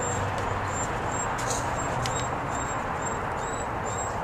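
Steady outdoor background noise, with a faint, high, short chirp repeating about twice a second.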